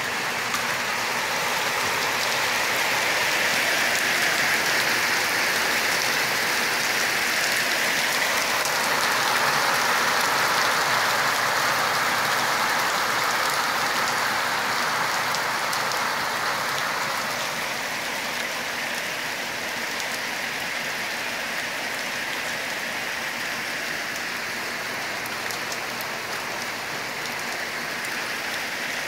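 Steady rain falling and pattering, a little heavier over the first half and easing slightly in the second half.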